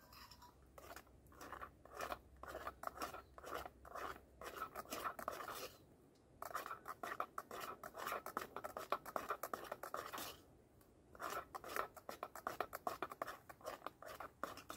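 Three runs of quick scratching strokes, each lasting a few seconds, with short pauses between them.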